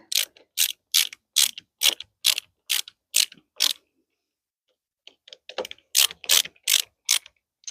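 Hand screwdriver driving a small screw into a door lock fitting, clicking in an even rhythm of about two or three clicks a second. The clicking stops for about a second and a half near the middle, then starts again.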